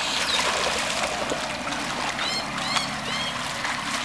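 Water splashing and sloshing as hands sweep through shallow muddy floodwater. About two seconds in, a bird chirps several times in quick short calls.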